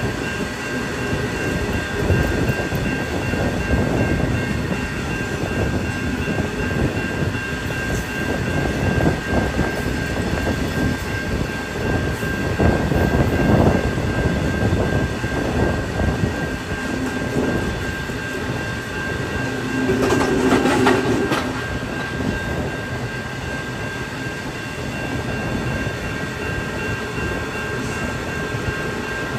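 Wagons of a loaded iron-ore train rolling past, a steady heavy rumble of steel wheels on rail with irregular knocks throughout.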